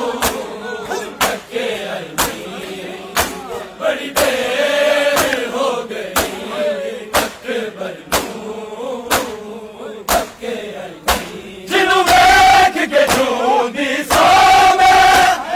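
A crowd of mourners beating their bare chests with their palms (matam) in unison, sharp slaps about once a second, while the men chant together. About twelve seconds in, loud drawn-out chanting takes over.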